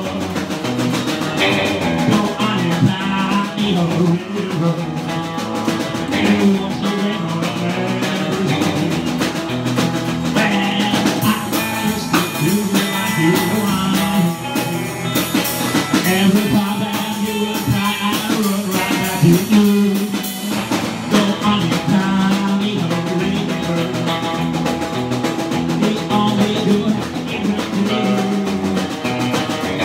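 Small rockabilly band playing together: strummed acoustic guitar, hollow-body electric guitar and a drum kit. The cymbals come up brighter for a stretch in the middle.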